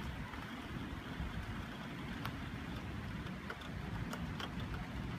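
Steady rain in a thunderstorm with a continuous low rumble under it, and a few sharp ticks about two seconds and four seconds in.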